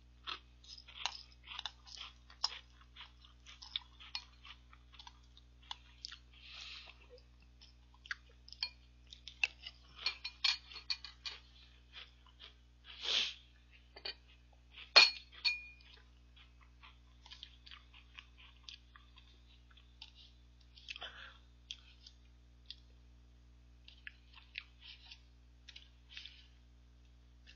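Metal spoon clinking and scraping in a bowl of ice cream mixed with Jolly Pong puffed-wheat cereal, with quiet chewing. One sharper, ringing clink comes about halfway through.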